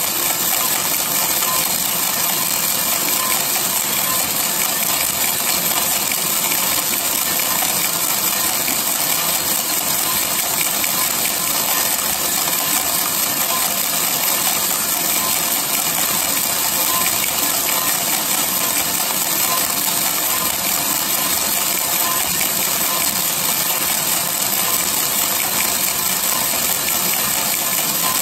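A 600 g batch of green coffee beans tumbling in the rotating steel drum of a 3 kg Mill City coffee roaster. It makes a continuous dense rattle of beans sliding and clattering against the drum and the door, over the steady run of the roaster's machinery.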